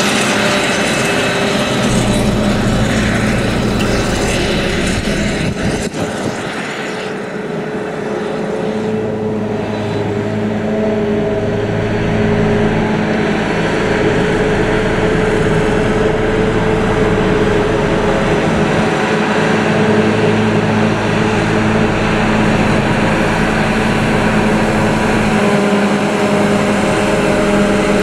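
Claas self-propelled forage harvester running under load as it chops grass silage and blows it through its spout into a trailer, a Claas tractor running alongside: a loud, steady machine drone with a steady hum in it. It eases a little about six seconds in and builds again as the machines come back.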